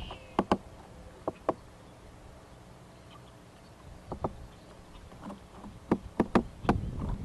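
Woodpecker loudly hammering on a tree: sharp knocks at irregular spacing, often two in quick succession, with a quicker cluster of several about six seconds in.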